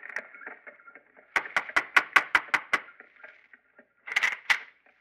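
Knocking on a wooden door, a radio-drama sound effect: a quick run of about eight knocks a little over a second in, then a short rattle near the end.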